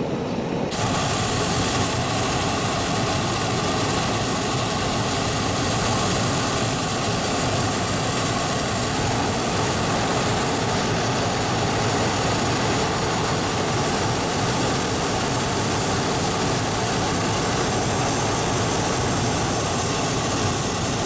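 Hot air balloon's propane burner firing in one long continuous blast, starting sharply under a second in and cutting off suddenly near the end, about twenty seconds later.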